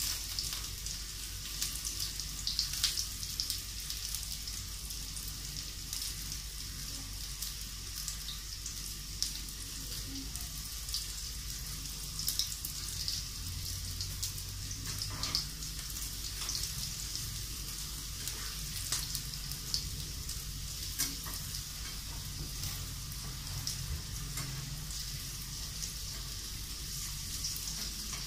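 Okra pieces shallow-frying in hot oil: a steady sizzle with many scattered crackles and pops. Now and then a spatula moves the pieces in the pan.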